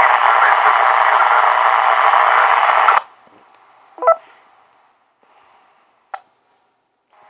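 Loud FM hiss and static from a ham repeater coming through a handheld transceiver's speaker, a voice barely showing under it, cutting off abruptly about three seconds in. A second later there is a brief pitched squawk, then a single click near the end. The noisy repeater audio is the audio problem on this net.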